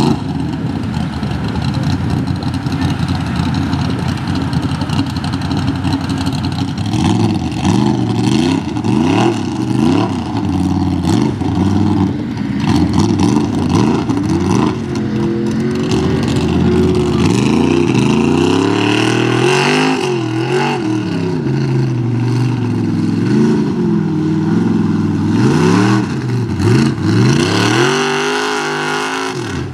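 Mud-bog truck's engine revving hard over and over, its pitch rising and falling in repeated swings, most busily from about seven seconds in.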